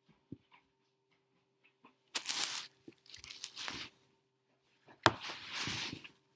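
Stiff pages of a large hardback picture book being turned and handled, the paper rustling in a few bursts. About five seconds in, the closed book is set down on a wooden table with a knock, followed by more rustling.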